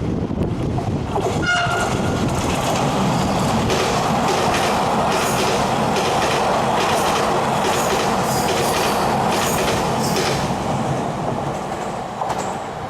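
A Taiwan Railways train passing through a station at speed: a steady rumble of wheels on rail with a regular clickety-clack over the rail joints. A brief high tone sounds about one and a half seconds in, and the sound eases off near the end.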